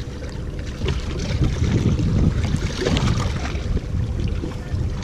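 Wind rumbling on the microphone over small waves lapping against the jetty rocks.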